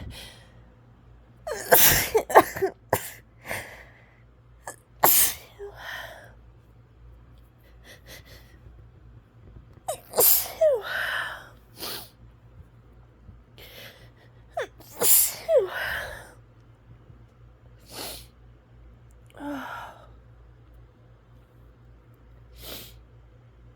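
A woman's allergy sneezing fit: a quick cluster of sneezes about two seconds in, then more single sneezes every few seconds, with breaths between them.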